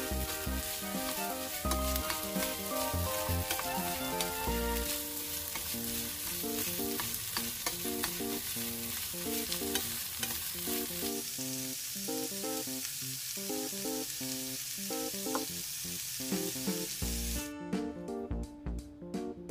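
Zucchini and minced pork sizzling in a frying pan while a wooden spatula stirs and tosses them, with clicks of the spatula against the pan. Background music plays throughout, and the sizzling stops abruptly near the end, leaving only the music.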